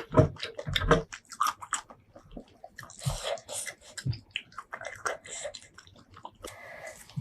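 Close-miked chewing of seafood, a dense run of short wet clicks and crackles, with the heaviest bites in the first second.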